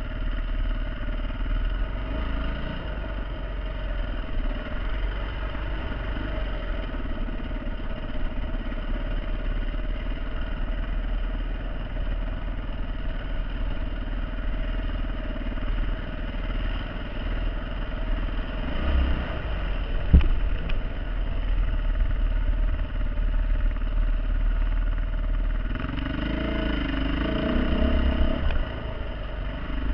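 Dirt bike engine running under way, rising and falling with the throttle, louder revving near the end. A single sharp knock about two-thirds of the way through.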